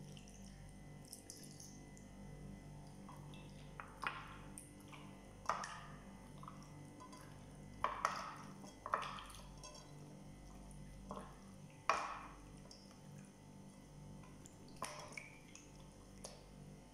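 A hand squishing raw chicken wings around in a dark liquid marinade in a ceramic bowl: short, irregular wet squelches and slaps every second or two, over a faint steady hum.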